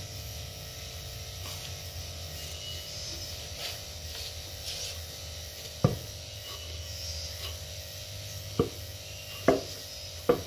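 Wooden pestle pounding rice flour in a mortar: a dull thump about six seconds in, then three more in the last two seconds. A steady low hum runs underneath.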